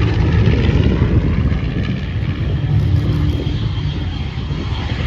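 B-25 Mitchell bomber's twin radial piston engines running as it flies past, a loud, deep propeller drone that eases slightly toward the end.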